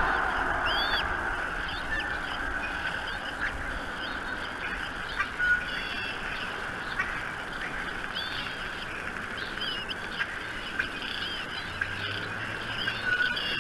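Birds calling: short, high chirps repeated every second or so over a steady hiss.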